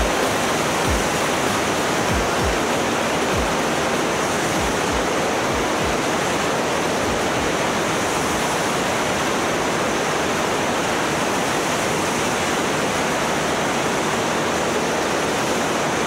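Steady rushing wind noise of a microlight in flight, with the Rotax 912 flat-four engine's drone under it. A few short low buffets hit the microphone in the first several seconds.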